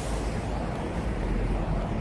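Evening city street ambience: a steady low rumble of road traffic, with some wind buffeting the microphone.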